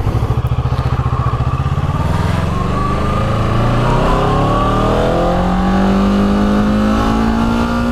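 2014 Kawasaki Ninja 650's parallel-twin engine pulling away from low revs, its note rising steadily for several seconds as it accelerates, then holding at a steady pitch near the end.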